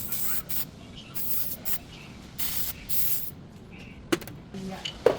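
Aerosol spray can sprayed in several short hissing bursts, followed by two sharp clicks near the end.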